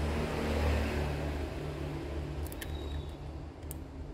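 Steady low electrical hum from bench equipment, with a few light clicks from handling the phone's parts during repair, about two and a half seconds in and near the end.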